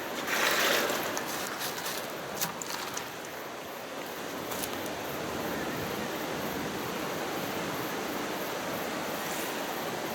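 Water running steadily, rinsing soap through a sieve, with a louder gush in the first second and a few light knocks.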